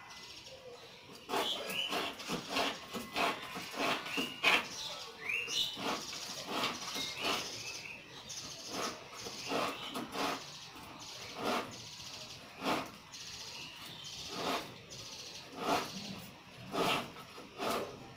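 A knife scraping scales off a whole fish in short repeated strokes, about one a second. Birds chirp in the background.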